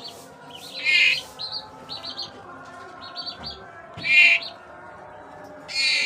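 A murai (magpie-robin) calling: three loud, harsh calls, about a second in, about four seconds in and near the end, with short high chirps between them.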